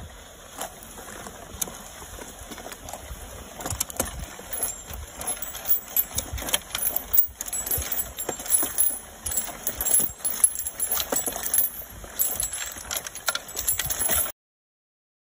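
A spiked roller pickup tool rolling over a concrete path, picking up small metal pieces and tipping them into its wire basket. The metal gives irregular clicks and rattles, and the sound cuts off suddenly about a second before the end.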